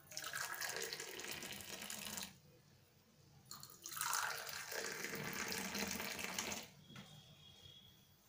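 Milky tea poured from a jug into small steel cups, one cup after the other: two splashing pours, the first about two seconds long and the second about three, with a short pause between.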